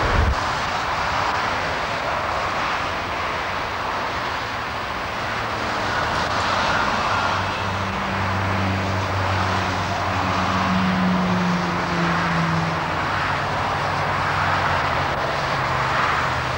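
Steady mechanical roar of machinery, with a low hum that swells in from about eight seconds in and fades after about thirteen.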